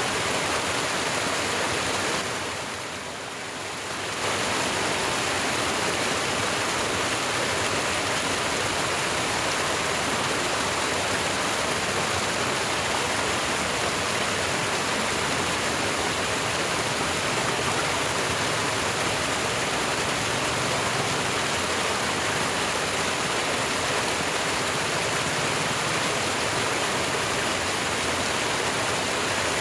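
Steady rushing of water flowing in an irrigation ditch. It dips in loudness for a couple of seconds a little after the start, then carries on evenly.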